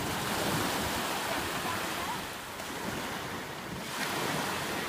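Small waves breaking and washing over the shallows at the shoreline, with wind rumbling on the microphone; the wash swells briefly about four seconds in.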